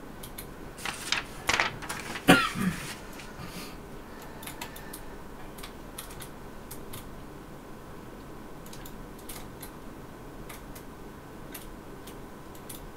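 Small clicks and rustles of a punch needle and its threading tool being handled: a cluster of sharper clicks in the first three seconds, the loudest about two seconds in, then only scattered faint ticks.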